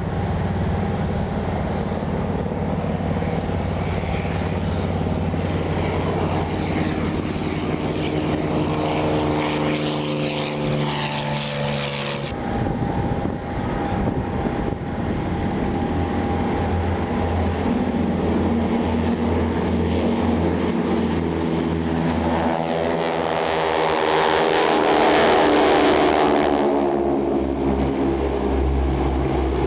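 Several piston-engine propeller airplanes flying in formation, a layered engine drone whose pitch bends as they pass. It breaks off abruptly about twelve seconds in, and a second pass swells to its loudest a few seconds before the end.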